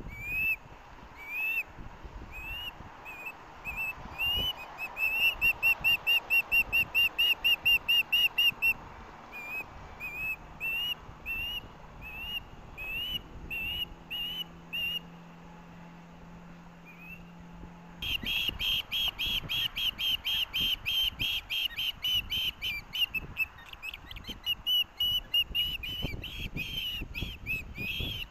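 Ospreys calling: a series of short, high whistled chirps that speed up into a fast, loud string, then thin out. After a break in the recording about two-thirds in, a louder, rapid chirping runs on, typical of a young osprey begging for food when an adult is on the nest.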